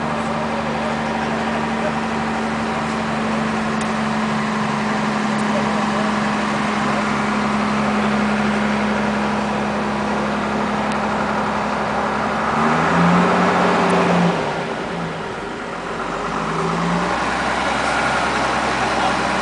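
A motor engine running steadily at an even, fairly high pitch. About 13 s in it drops in pitch and gets louder for over a second, as if put under load, then eases off and picks up again a few seconds later.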